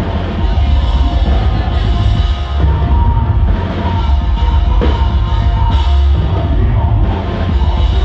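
Live metalcore band playing at full volume: pounding drum kit and electric guitars.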